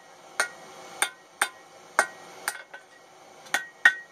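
Hand hammer striking a chain link held in chain-making tongs on a steel anvil, about two blows a second, each with a short bright metallic ring; the last few blows are the loudest.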